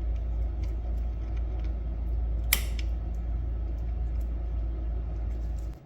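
Light clicks of steering column parts being handled, with one sharp click about two and a half seconds in, over a steady low hum that cuts off just before the end.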